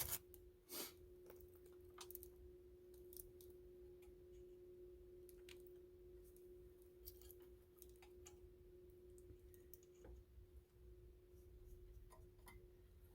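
Near silence: scattered faint clicks of small screws being handled and fitted back into a mower's cover, over a faint steady hum.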